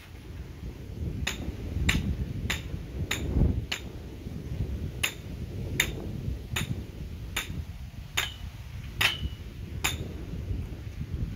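Hand hammer striking repeatedly in a steady series of about a dozen blows, roughly one every 0.7 seconds, a couple of them with a short ring after.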